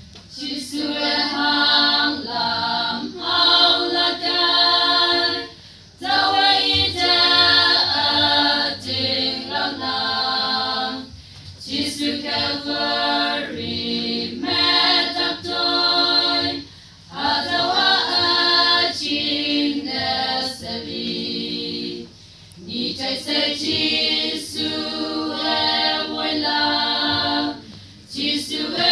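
A small choir of young women singing a hymn a cappella, in phrases of about five seconds with short pauses for breath between them.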